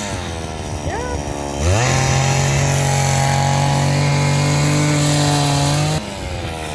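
A small engine, like a chainsaw's, running at a low idle. About 1.7 seconds in it revs up sharply and holds a steady high speed. About 6 seconds in it drops back suddenly to idle.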